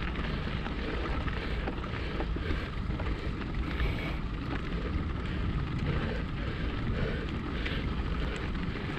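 Steady wind rumble on the camera's microphone, over the light crunch and rattle of mountain bike tyres rolling on a dirt and gravel trail.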